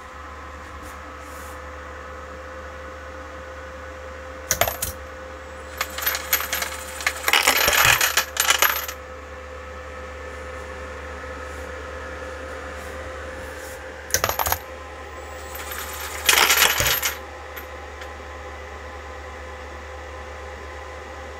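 Brass rifle cases clinking and clattering as a Dillon case feeder tumbles them and they drop through a case annealer into a catch box, over a steady machine hum. The clatter comes in bursts: a short one about four seconds in, a long loud spell from about six to nine seconds, and two more at around fourteen and sixteen seconds.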